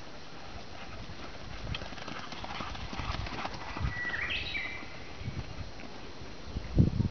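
Doberman pinschers galloping on dirt, their paws thudding in an uneven running rhythm. The thuds grow louder near the end. A brief high chirp sounds about four seconds in.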